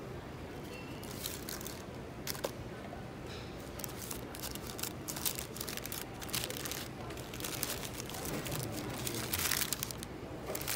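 Paper burger wrapper being unfolded by hand, crinkling and rustling in many short crackles, loudest about nine seconds in.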